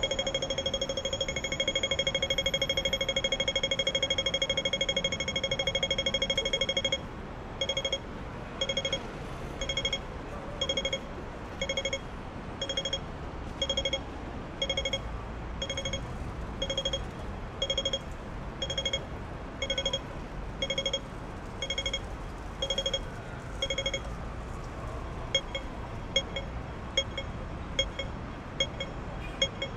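Hong Kong pedestrian crossing signal beeping over steady street noise. For the first seven seconds it gives a rapid continuous run of pips, the walk signal. It then drops to one beep about every second, the wait signal. Near the end come shorter, sharper clicks, a little faster.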